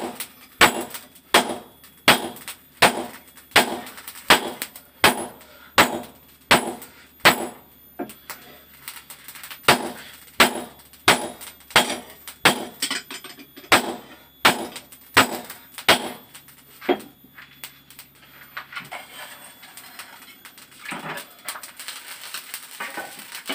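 Hand hammer striking spring steel on an anvil in a steady forging rhythm, about three blows every two seconds, with a short pause partway through; the blows stop about two-thirds of the way in, leaving only a few scattered taps.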